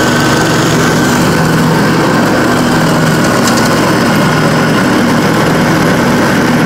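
Dixie Chopper zero-turn riding mower running loudly and steadily as it drives along, its engine holding an even note.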